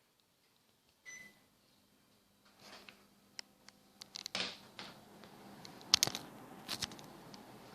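Air conditioner beeps once as it is switched on, then starts up with a steady low hum. Several clicks and knocks follow, and the rush of air from the unit builds.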